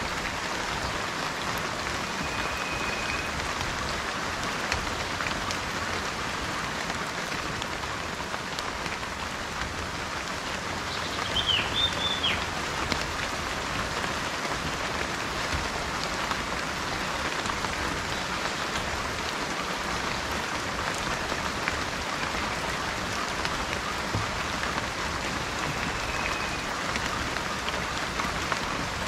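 Steady rain falling, with individual drops ticking through it. A bird gives a short call about halfway through, and faint brief whistles come near the start and near the end.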